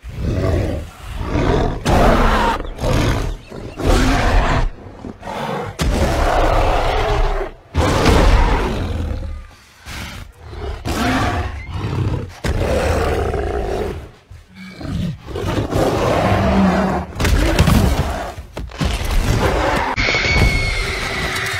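Movie monster roars: a giant gorilla and a tyrannosaur-like V. rex roaring and snarling in a fast run of loud calls with short breaks between them.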